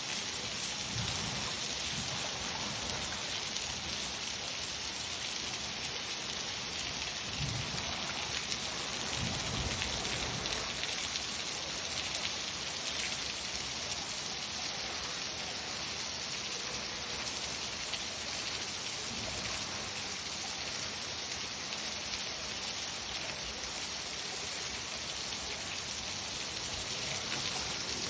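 Steady, heavy rain falling and pattering on surfaces, with a few low rumbles of distant thunder, the longest about a third of the way in.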